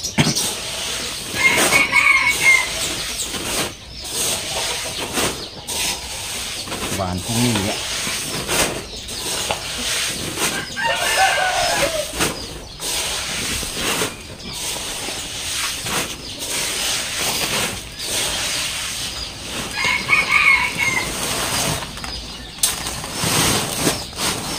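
Soaked paddy rice seed being scooped with a bowl and poured into a woven plastic sack: repeated rustling, scraping strokes of wet grain. A rooster crows three times, about nine seconds apart.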